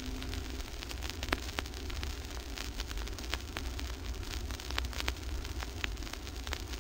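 Vinyl LP surface noise in the silent groove between two songs: scattered crackle and clicks over a steady hiss and low rumble. The last held note of the previous song dies away about a second in.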